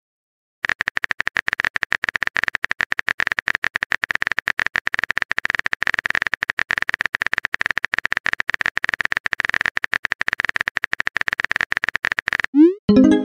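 Phone keyboard typing sound effect: a fast, uneven stream of small tapping clicks. Near the end comes a short rising blip and a chime as the message sends.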